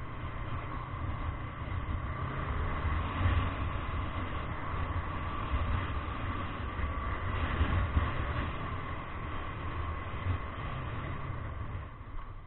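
Motorcycle running at a steady cruising pace, with a low rumbling drone from engine, wind and road, and a faint steady whine above it. The sound quietens near the end.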